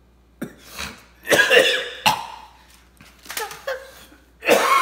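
A man coughing in several short bouts, reacting to the foul taste of a spoiled-milk flavoured Bean Boozled jelly bean.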